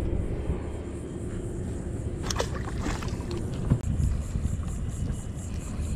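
Steady low rumble of wind and water around a small fishing boat, with a few sharp knocks and clicks from about two seconds in.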